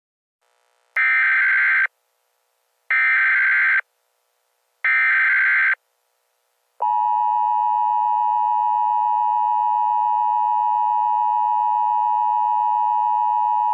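Emergency Alert System SAME header: three short bursts of buzzing data tones, about a second each and a second apart. Then, about seven seconds in, the steady EAS attention tone starts, signalling that an emergency alert is beginning.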